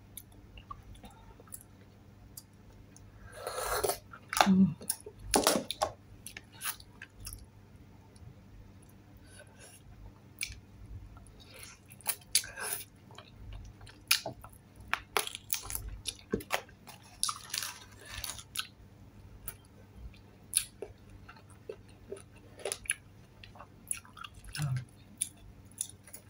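A person chewing and biting into fried chicken close to the microphone: wet mouth sounds and small clicks, with a louder crunchy bite about four seconds in and another around eighteen seconds in.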